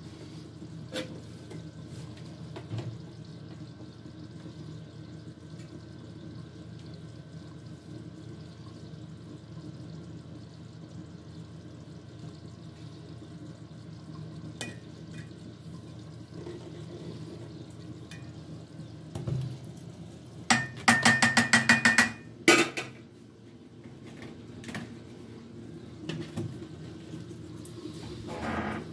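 Metal ladle working in a large aluminium cooking pot of rice, with scattered light knocks. About two-thirds of the way in comes a quick run of loud, ringing metal clanks, then one more clank, over a steady low hum.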